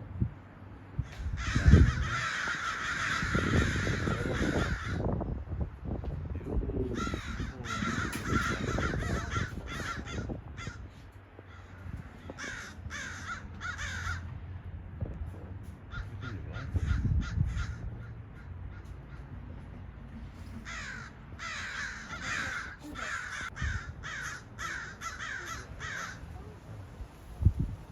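Crows cawing, short harsh calls coming in bouts of several seconds with brief pauses between, over a low rumble.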